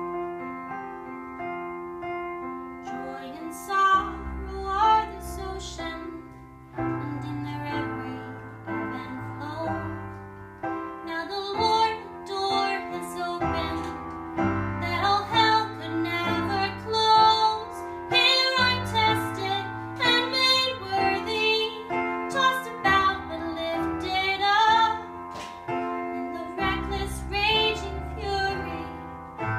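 A woman singing a slow song while accompanying herself on a digital piano. The piano plays alone at first, and her voice comes in a few seconds in, backed by deep bass notes.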